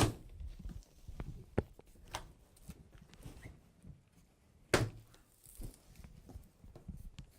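Parts and packing material being handled and lifted out of a cardboard shipping box: a sharp knock right at the start and another about five seconds in, with lighter taps and rustling between.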